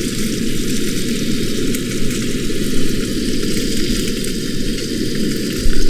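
Food sizzling in oil in a skillet on a portable camp stove, over a steady low rumble. A brief, loud low bump comes near the end.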